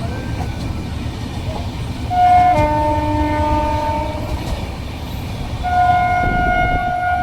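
WAP-7 electric locomotive horn sounding twice over the steady low rumble of the moving train: a blast of about two seconds starting about two seconds in, and a longer one starting near the end.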